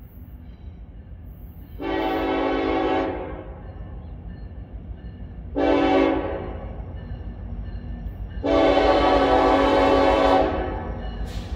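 Multi-chime air horn of an approaching Norfolk Southern diesel freight locomotive sounding three blasts: long, short, then long. A steady low rumble runs underneath.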